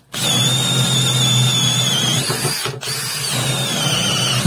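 Makita DDF485 18-volt brushless drill-driver in second (high) gear boring into a wooden board with a 20 mm spade bit: a high motor whine that sags slightly in pitch under load, over the rough noise of the bit cutting wood. There is a brief break about two and three-quarter seconds in, then it drills again. The drill copes easily.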